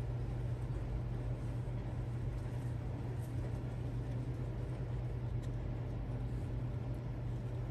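Steady low hum of a running machine, unchanging throughout, with a couple of faint ticks.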